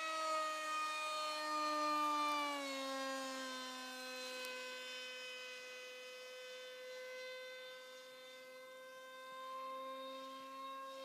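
Electric motor and propeller of an RCPowers F-18 v3 foam RC jet whining in flight. The pitch drops about two seconds in as the plane passes, then holds steady and fainter as it flies away.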